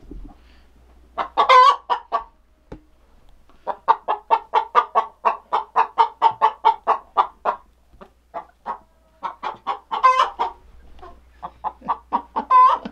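Agitated hen cackling loudly: long runs of quick, repeated clucks at about four a second, broken by louder, higher squawks about a second and a half in and again about ten seconds in. It is the alarm-and-anger cackle of a hen disturbed on her nest box.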